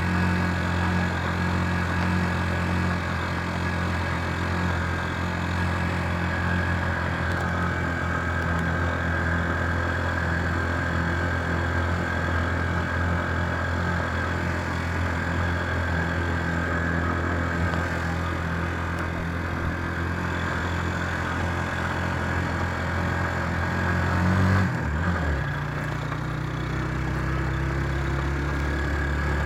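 Vehicle engine running steadily, heard from inside the moving vehicle along with road noise. About 24 seconds in, the engine note drops suddenly, as at a gear change, then settles lower and starts to climb slowly again.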